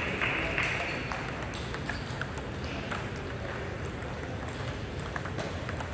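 Table tennis balls clicking on tables and paddles from many matches at once, heard as scattered sharp ticks in a large sports hall. A hiss fades out in the first second and a half.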